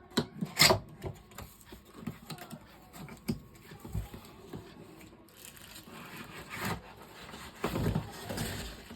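Handling noises from a laptop being unboxed: a few sharp clicks and knocks, the loudest about half a second in, then short stretches of rubbing and scraping near the end.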